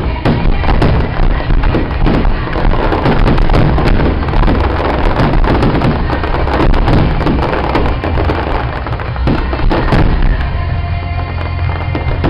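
Fireworks display going off: many bangs and crackles in quick succession from shells and fountains, with music playing along.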